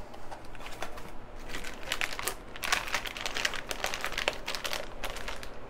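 Clear plastic parts bags crinkling as hands handle and shift them, a continuous run of irregular crackles.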